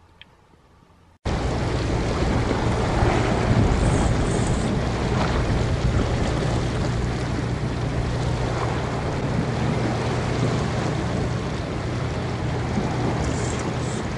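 Steady wind and sea noise with an even low hum underneath. It cuts in abruptly about a second in, after a moment of near silence.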